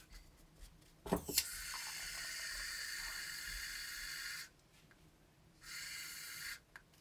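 Aerosol can of shaving foam spraying foam into a bowl. After a couple of clicks about a second in, there is a steady hiss of about three seconds that stops abruptly, then a second, shorter spray of about a second near the end.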